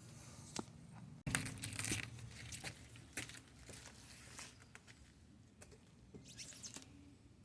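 Scattered light clicks and rustling, with a sudden break about a second in.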